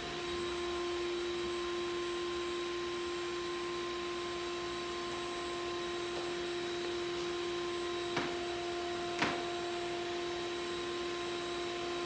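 Steady electrical hum at one pitch with a few fainter overtones, with two soft clicks about eight and nine seconds in.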